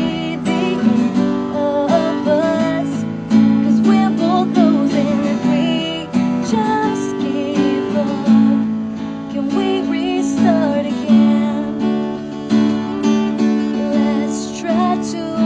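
A woman singing a pop ballad live, accompanied by a strummed acoustic guitar.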